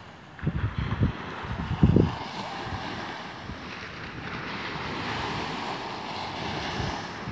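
Small waves breaking and washing up a shingle beach, with wind gusting on the microphone, the loudest gust about two seconds in.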